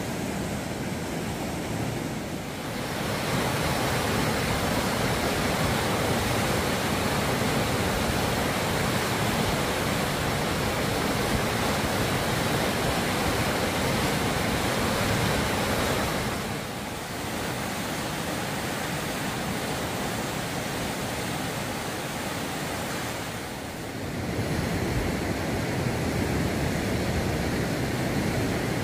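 River rapids rushing over rocks: a steady, loud rush of water that dips briefly a couple of times.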